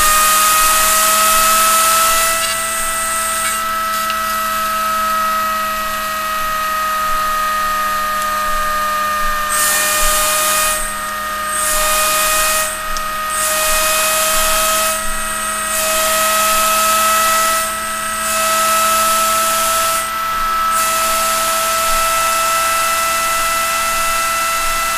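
Tesla bladeless steam turbine with a stainless-steel rotor spinning on boiler steam: a steady high whine that climbs slowly in pitch as it speeds up, over the hiss of venting steam. In the second half the hiss drops away briefly several times.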